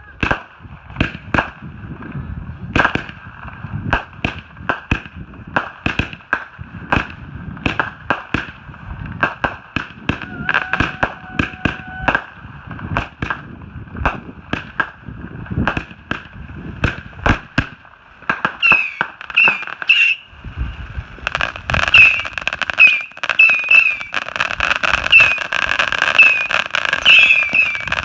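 Consumer fireworks going off: a long string of sharp bangs and crackles, roughly one or two a second. After about eighteen seconds short whistling squeals join in, and the bangs come thicker and louder toward the end.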